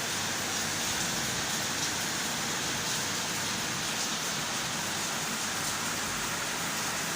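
Steady rain falling, an even hiss that holds without change.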